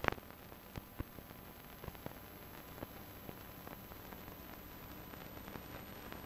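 Steady hiss scattered with irregular clicks and pops, the surface noise of an old film soundtrack transfer, with a sharper crackle right at the start.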